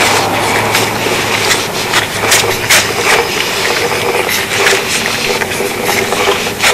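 Sewer inspection camera's push cable being fed into the drain line, with irregular clicks and rattles over a steady mechanical hum.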